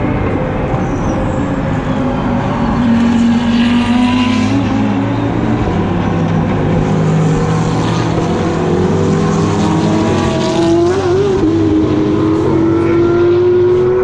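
British GT race cars' engines at racing speed, several engine notes overlapping, their pitch falling and rising as the cars brake and accelerate.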